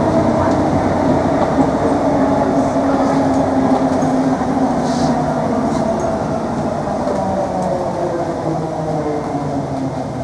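Class 321 electric multiple unit heard from on board: its traction motors whine over the rumble of the running gear. About halfway through, the motor whine starts to fall steadily in pitch as the train slows.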